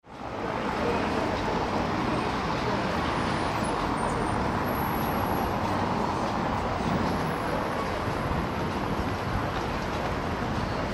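Steady city street noise with traffic, fading in at the start.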